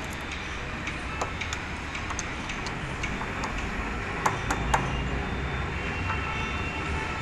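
Hand screwdriver driving the screws that fix a door-lock cylinder and its plate, giving scattered small metal clicks and ticks, with three sharper clicks close together about four and a half seconds in. A steady low rumble runs underneath.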